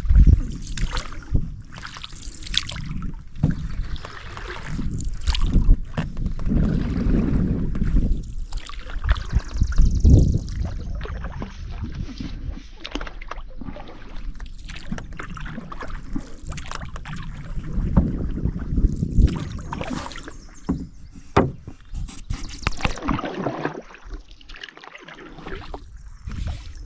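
Canoe being paddled along a creek: paddle strokes sloshing and gurgling in the water, with irregular knocks and low rumbles of wind on the microphone.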